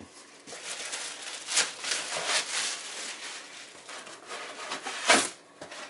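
Packing being pulled out of a cardboard box: plastic wrapping rustling and crinkling, then a cardboard-and-foam insert scraping against the box, with one sharp, loud scrape just after five seconds.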